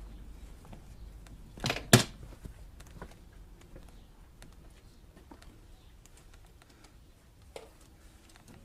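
Scattered light clicks and knocks from hands-on work, with two sharp knocks close together about two seconds in.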